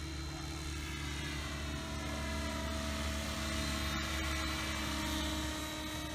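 Align T-Rex 700E electric RC helicopter in flight: the steady whine and thrum of its electric motor and spinning rotors, growing a little louder from about the middle as it passes close, then easing off near the end.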